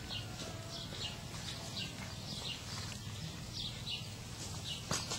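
Small bird chirping over and over: short high chirps, each dropping in pitch, about two or three a second, over a low outdoor rumble. A single sharp click comes near the end.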